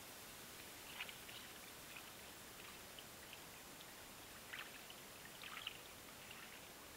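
Near silence: a steady faint hiss with a few soft crackles, once about a second in and several more a little past the middle.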